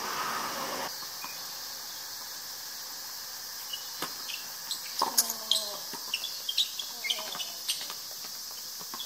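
Tennis rackets hitting the ball in a doubles rally: a sharp pop from the serve about four seconds in, then a quick run of hits and footsteps on the hard court, with a brief shout from a player.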